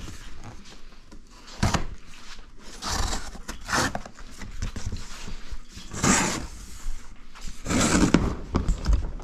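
A knife slicing through thick corrugated cardboard and the cut cardboard being ripped and pulled apart, in about five separate scraping, tearing strokes with a sharp click near the start.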